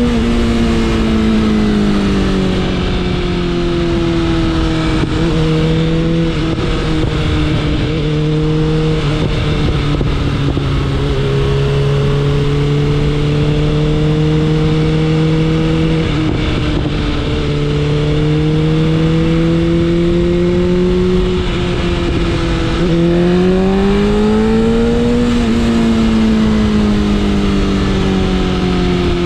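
BMW S1000RR's inline-four engine running under way at moderate revs over a steady rush of wind. Its pitch eases down at first, holds fairly steady with small rises, then climbs for a couple of seconds near the end and drops sharply.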